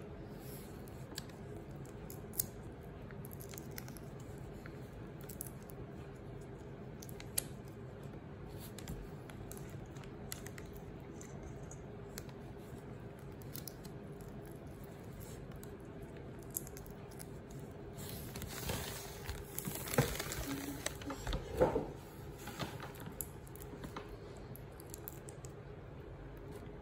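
Raw shrimp being peeled: soft, scattered clicks and crackles of shells coming off, busier for a few seconds about two-thirds of the way in, over a steady low hum.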